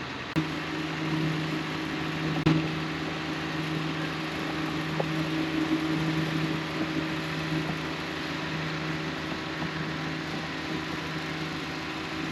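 A motor running with a steady low hum over a broad rumble. The hum comes in suddenly with a click about half a second in, and another click comes at about two and a half seconds.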